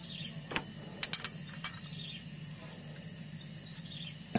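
A few light metallic clicks of a socket wrench on a truck clutch bleeder screw as it is worked open to bleed air from the clutch line, over faint outdoor chirping. There are four quick clicks in the first two seconds and one more near the end.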